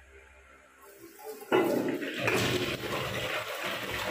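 Dual-flush toilet flushing: the water starts suddenly about a second and a half in and rushes steadily into the bowl.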